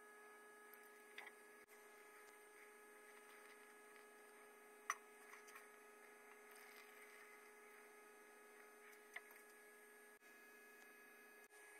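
Near silence with a steady faint electrical hum, broken by a few faint clicks; the sharpest comes about five seconds in.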